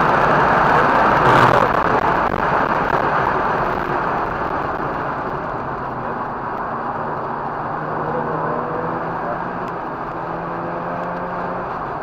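Mazda RX-8's two-rotor rotary engine, with wind and road noise, heard from inside the car on track. It is loudest at first and grows quieter over the first few seconds, then settles to a lower, steadier engine note. A single brief sharp click comes about a second and a half in.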